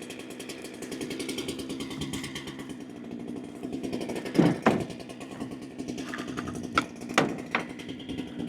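Holzfforma G395XP two-stroke chainsaw, a Husqvarna 395XP clone, idling steadily. A few sharp knocks or clicks sound over it in the second half, the loudest about halfway through.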